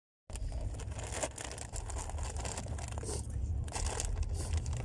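Foil snack bag crinkling and rustling as it is handled, a dense run of sharp crackles over a steady low rumble.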